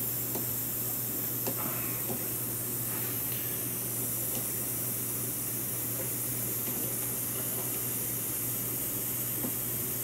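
Steady background hiss with a low constant hum, and a few faint taps and clicks as the wires and soldering tools are handled.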